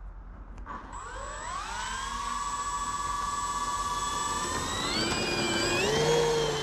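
Twin electric motors and propellers of an Avios KingTwin RC plane throttling up for takeoff. A whine rises in pitch about a second in, holds steady at high power, then shifts upward again near the end.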